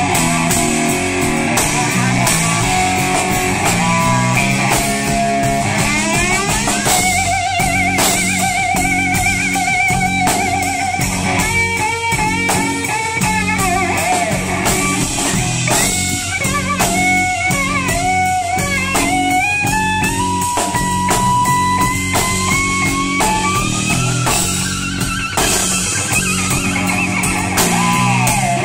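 Live blues-rock electric guitar solo over a drum kit. Long held, bent notes with wide vibrato come about a third of the way in, and a line climbs slowly in pitch toward the end.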